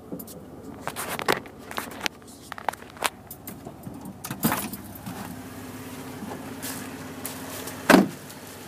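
A person getting out of a Jeep Wrangler: a run of clicks and rustling, a loud door knock about four and a half seconds in, a steady low hum while the door is open, and a hard door slam near the end.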